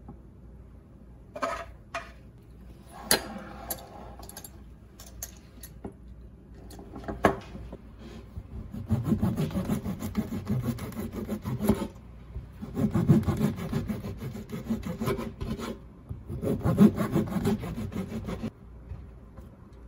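A knife sawing back and forth through the crust of a whole-rye loaf on a wooden cutting board, in three spells of rasping strokes in the second half. Before that, a few sharp knocks of a wooden spoon against a glass jar.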